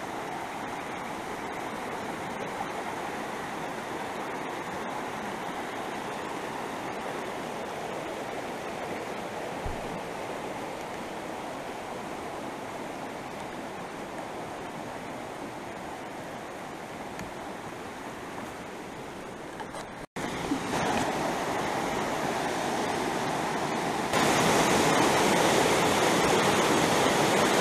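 Fast creek water rushing over rocky rapids, a steady rushing noise. About twenty seconds in it cuts out for an instant and returns louder, then grows louder again a few seconds later as the rapids come close.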